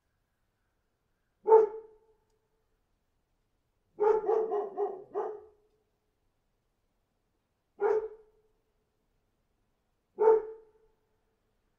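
A dog barking. There is a single bark, then a quick run of about five barks around four seconds in, then two more single barks a few seconds apart, with dead silence between.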